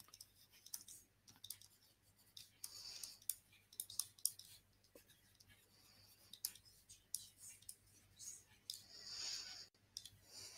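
Faint, irregular clicks and taps of a stylus writing on a screen, with a few short scratchy hisses as the strokes are drawn.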